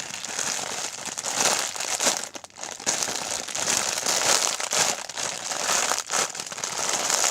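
Plastic squishy packaging bag crinkling continuously and irregularly as a squishy toy is handled and pushed into it. The crinkling starts suddenly.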